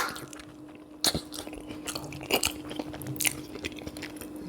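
Close-miked chewing of a buttery sweet potato and sausage boil, with wet mouth smacks and bites about one, two and a half, and three and a quarter seconds in. A faint steady hum lies underneath.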